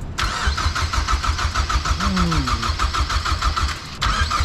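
Car engine being cranked over by its starter motor in a fast, even rhythm without catching, with a short break about four seconds in before cranking resumes. The engine will not fire, which the mechanics suspect is down to the crankshaft position sensor.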